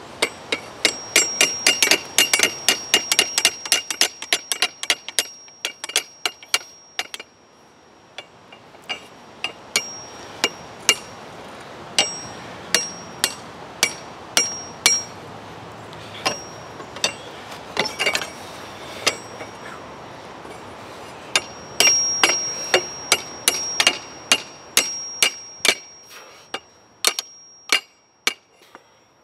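Hand hammer striking a hot steel rod over the horn of an anvil, shaping a hook, in quick runs of blows with short pauses between. Each blow leaves the anvil with a high, clear ring.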